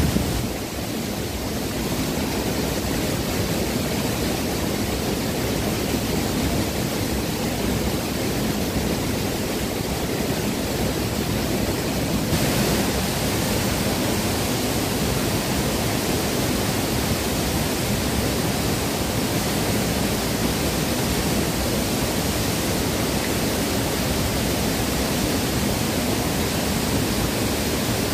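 Fast, shallow river water rushing over a rock lip at the top of a waterfall, close to the microphone: a steady, loud rush of water that turns a little hissier about twelve seconds in.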